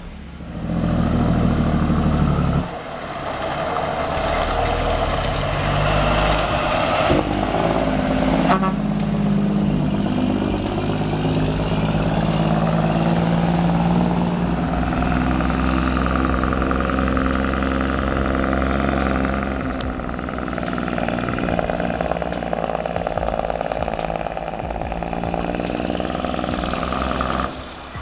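Heavy log truck's Cummins diesel engine running under load, its pitch shifting up and down as it changes speed, with a brief drop about two and a half seconds in.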